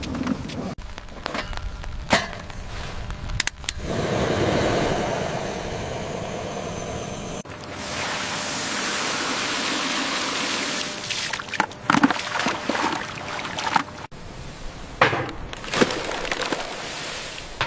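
Rushing, splashing water with scattered knocks and clatters; the rush changes abruptly partway through and stops near the end, where the knocks continue.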